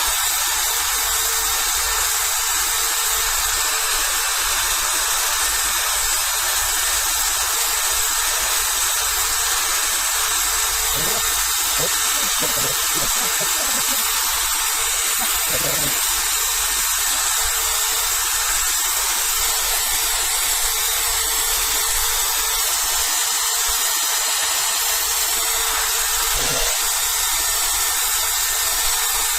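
Electric drill running steadily, spinning a wet sanding pad from a headlight restoration kit over a hazy plastic windscreen, with a steady motor whine over a continuous hiss.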